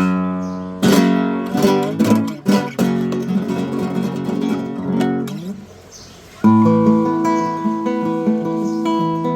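Yamaha CG162C classical guitar with Savarez 500CJ nylon strings, played solo: a run of plucked notes and chords that dies away about six seconds in, then a new chord rings out and sustains.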